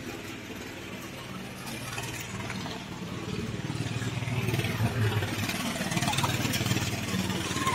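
Tractor engine running steadily, growing gradually louder toward the end.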